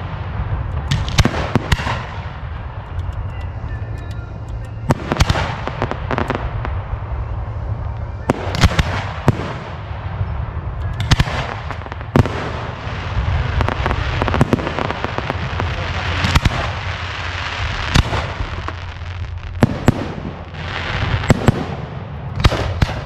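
Display fireworks bursting overhead: a steady run of sharp booms, about one a second, with crackling between them.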